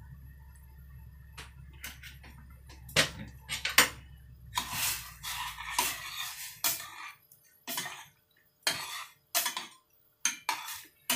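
A metal spoon clinking and scraping against a stainless-steel saucepan as a broth is stirred, in irregular knocks that grow frequent from about three seconds in.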